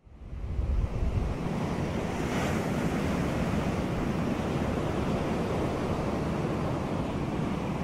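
Surf breaking on a beach, with wind on the microphone; the sound fades in over the first second and then holds steady.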